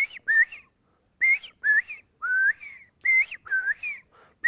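A man whistling by mouth an imitation of the northern bobwhite quail's koi-lee covey call: quick short whistles, mostly in pairs, each sliding upward. It is the call of a quail covey waking up.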